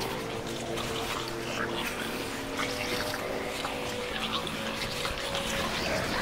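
Electronic ambient soundtrack: sustained synthesized tones that step from one pitch to another every second or so over a hiss, with scattered small crackles and clicks.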